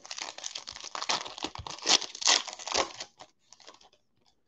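Foil wrapper of a Panini Absolute football card pack being torn open and crinkled: a dense crackle of tearing and crinkling for about three seconds, then a few faint rustles.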